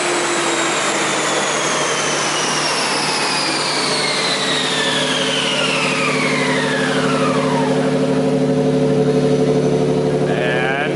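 Lexus SC300 with a 1JZ engine on a chassis dyno spinning down after a pull: a high whine from the dyno rollers and driveline falls steadily in pitch over about eight seconds. Underneath, the engine runs at a steady low note.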